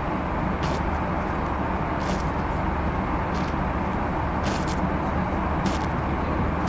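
City street ambience meant to evoke a 1930s city: a steady low rumble of traffic with short, sharp clacks recurring about once a second.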